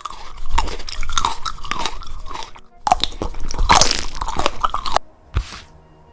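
Loud crunching, something brittle being crushed or bitten, in two long bouts of about two and a half and two seconds, then one short crackle near the end.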